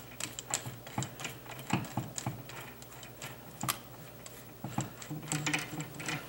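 Irregular clicks and small knocks from handling a cordless drill and its long flexible drill bit, with a short low whir about five seconds in.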